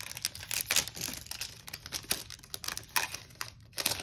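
A Pokémon booster pack's foil wrapper being torn open and crinkled by hand: a dense run of sharp, irregular crackles.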